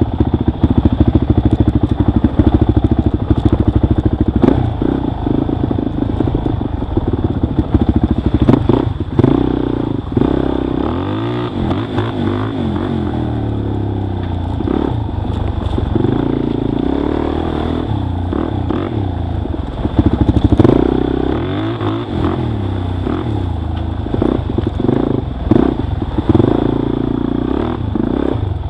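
Dirt bike engine revving up and down as it rides a rough trail, with clattering knocks from the bike bouncing over bumps.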